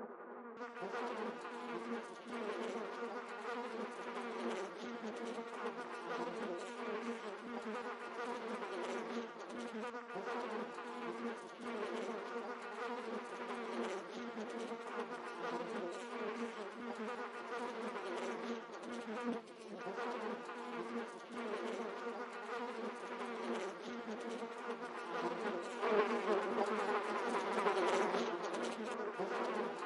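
A steady, dense buzzing drone with several held tones, which brightens just under a second in and swells a little louder near the end.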